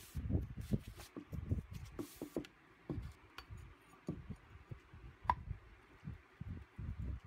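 Handling a cardboard poster tube: a rolled paper poster is pushed in and a metal-rimmed end cap is fitted, giving a string of dull cardboard thuds and taps with a few clicks. There is one short metallic ring about five seconds in.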